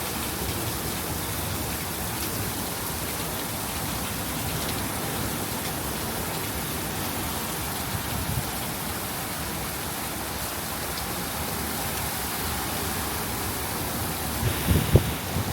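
Steady rain falling, an even hiss, with a few short low thumps close together near the end.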